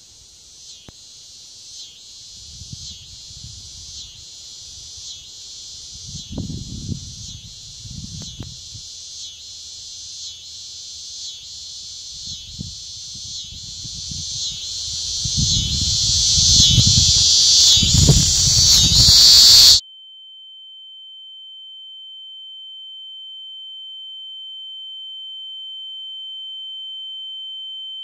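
A high, insect-like chirring, like a cricket chorus, pulsing about once a second, swells steadily louder over irregular low rumbles. About two-thirds of the way through it cuts off suddenly, and a steady high-pitched pure tone rings on in its place.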